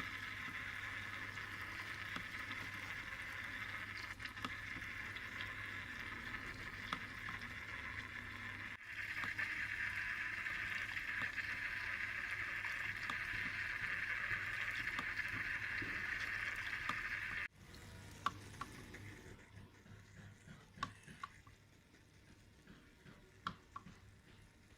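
Water splashing steadily from a homemade bamboo water fountain. The sound changes abruptly twice, and after about two-thirds of the way through it drops to a much quieter trickle with scattered drips.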